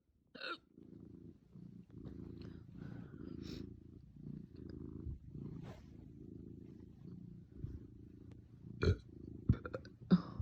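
Sharp hiccups, one just after the start and three close together near the end, over a steady purr from a cat.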